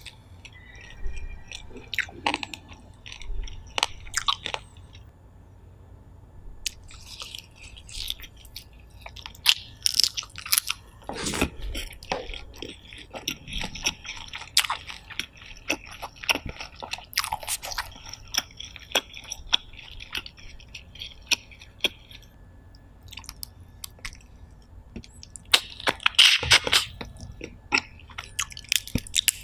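Close-miked, wet chewing of steamed shellfish meat, mixed with irregular clicks and crackles of the shells being pulled apart by hand. There is a loud burst of crunching a few seconds before the end.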